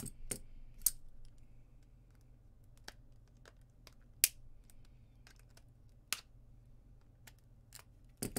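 Plastic case of a laptop battery pack cracking and snapping as it is pried apart with pliers: a string of single sharp cracks every second or so, the loudest a little past four seconds in, over a steady low hum.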